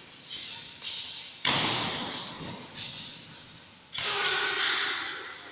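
Badminton rackets striking a shuttlecock during a rally: sharp smacks roughly a second apart, each trailing off in the echo of a large hall, the loudest about a second and a half in and near four seconds.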